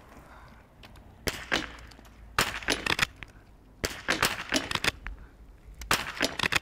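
Small-bore .22 biathlon rifle fired from the prone position: a quick series of sharp shots and clicks, coming in groups about a second or so apart.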